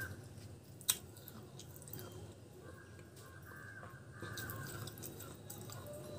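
A person chewing crunchy pieces of clay pot, with one sharp crunch about a second in. Crows caw in the background a little before the middle.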